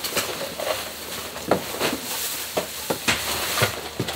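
Rubber work boots being pulled on and stepped in: irregular rustling and scuffing with several short, light knocks.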